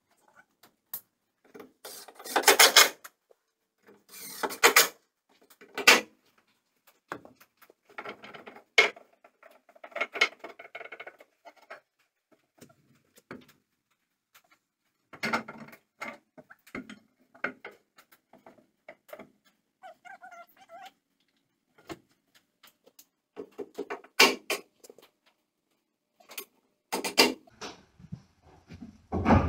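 Wooden boards and bolts of a milking stanchion knocking, scraping and rattling as a crossboard is handled and fitted, in short separate bursts with quieter clicks between.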